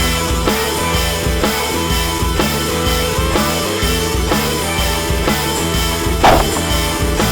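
Background music with a steady beat of about two beats a second, with a brief louder burst about six seconds in.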